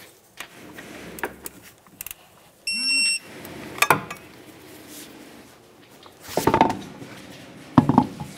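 One electronic beep about three seconds in, a steady high tone lasting about half a second, typical of a digital torque wrench signalling that the brake caliper bolt has reached its set torque of 24 ft-lb. Metal tool clinks and knocks come before and after it.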